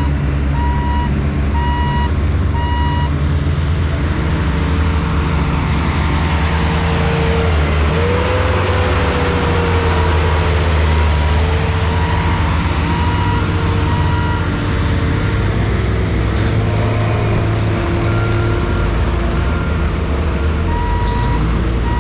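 Heavy vehicle engine running steadily while a reversing alarm beeps on and off; midway the engine pitch dips, then rises and slowly falls.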